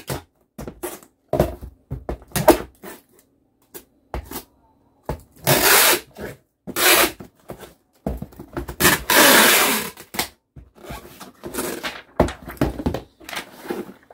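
Packing tape pulled off the roll in several strips, the longest about two seconds, to seal a cardboard shipping box, with short knocks and handling noises of the box between.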